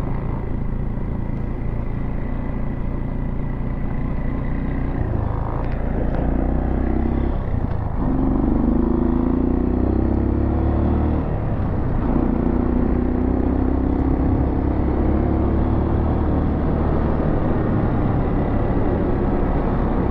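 Motorcycle engine running under way as the bike rides along, its note stepping up and down in pitch a few times, with rushing air noise over it.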